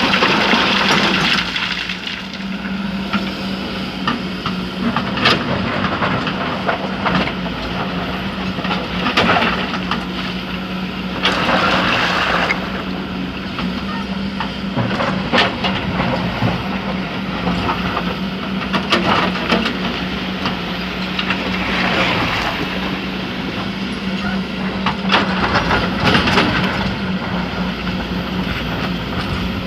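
Kobelco SK200 hydraulic excavator's diesel engine running steadily under load. Several times a hissing rush of sand pours from the bucket, and there are scattered sharp knocks of the bucket and machinery.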